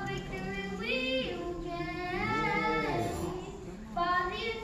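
Children's gospel choir singing held notes that glide between pitches, with a new phrase beginning near the end.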